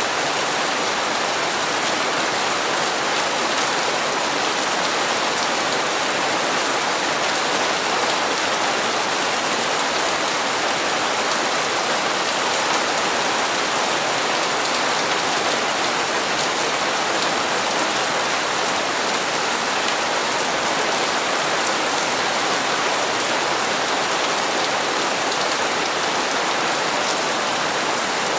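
Steady heavy rain falling and pattering on hard surfaces, an even dense hiss with many small drop impacts.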